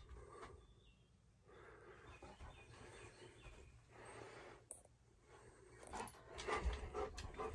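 A dog panting, growing louder near the end, with a few low thumps.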